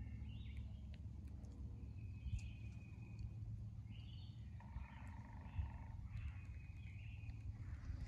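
Birds calling, a string of short high calls one after another, over a steady low rumble.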